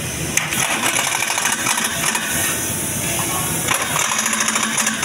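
Pneumatic impact wrench hammering rapidly as it tightens a bolt, in two bursts: one of about two seconds starting just after the beginning, and a second near the end.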